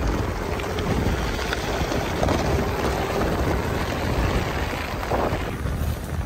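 Wind buffeting the microphone on a moving gravel bike, with the tyres rolling steadily over a dirt road.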